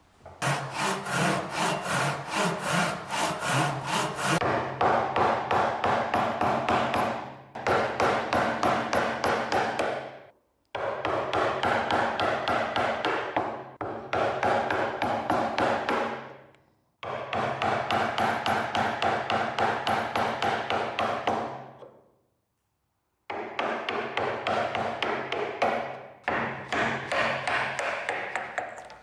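A hand tool scraping in quick, even, rhythmic strokes, typical of sawing, filing or sanding by hand. It comes in several stretches broken by short silent gaps.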